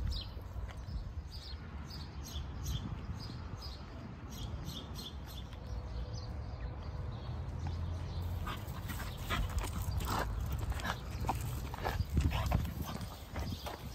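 French bulldog puppy snuffling and moving about in the grass, with a run of short, irregular scuffing noises starting about halfway through, over a low steady rumble.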